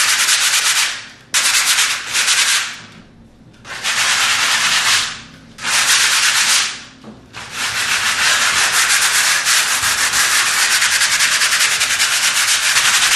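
A plaster wall being sanded by hand with 150-grit sandpaper on a block, a rasp of quick back-and-forth strokes. It comes in four short bursts with brief pauses, then runs continuously from about seven seconds in. The light sanding knocks down bumps of plaster pulled up with old nails.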